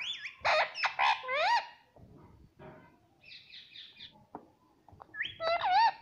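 Indian ringneck parakeet calling and chattering: loud calls that slide up and down in pitch in the first second and a half, softer short chirps in the middle, and another loud call near the end.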